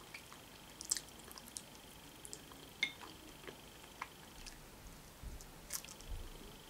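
Quiet, close-up eating: a person chewing roasted chicken wing and picking at it with the fingers, with small wet squishes and smacks and a few sharp clicks, the loudest about a second in and just before three seconds in.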